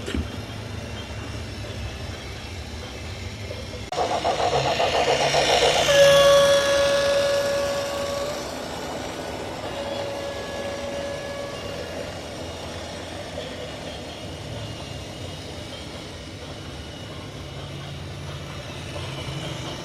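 Radio-controlled backhoe loader running with a steady mechanical hum. A buzzing rattle starts about four seconds in, then a steady high whine sounds for about two seconds, stops, and comes back briefly.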